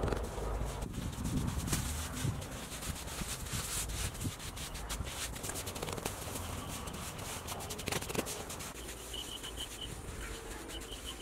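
Hands rubbing and scraping over wet plaster on an earthen pool wall, a gritty scratching with scattered small clicks of grit and soil. Near the end a rapid high chirping comes in.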